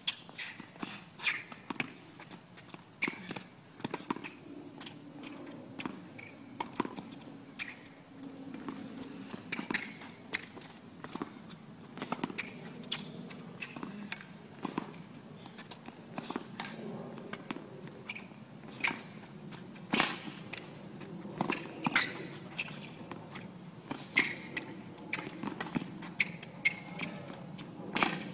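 Tennis ball hit back and forth with rackets in a long mini-tennis rally: sharp pocks of ball on strings about once a second, with smaller taps in between.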